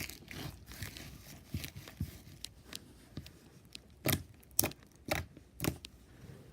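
Neon slime being squeezed and poked by hand, giving a run of small sticky pops and clicks, with four sharper pops about half a second apart in the second half.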